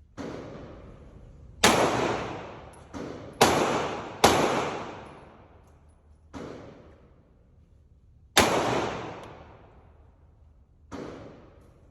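Shots from a Glock 19 9mm pistol, about eight, irregularly spaced, each followed by a long echoing decay. The loudest come about one and a half, three and a half, four and eight and a half seconds in, with fainter shots between them.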